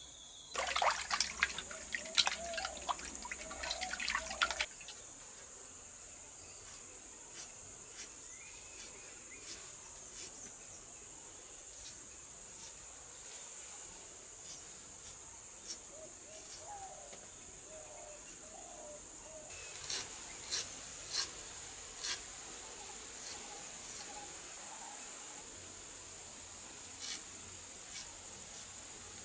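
Steady high-pitched chirring of crickets. Over it there is a dense clatter of clicks and knocks for the first few seconds, then scattered single sharp clicks as fresh ginger is sliced by hand with a knife.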